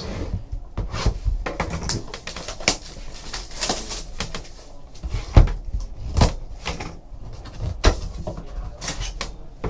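Cardboard trading-card box being handled and opened: rustling and scraping of the cardboard with a string of clicks, and a few sharper knocks in the middle.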